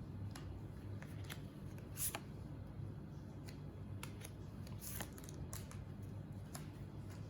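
Pokémon trading cards being handled and flipped through, a scatter of short, light clicks and slides, over a steady low hum.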